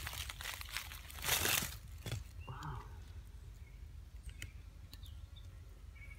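Dry leaf litter crunching and rustling as hands and feet move through it: two loud bursts in the first two seconds, then quieter rustling.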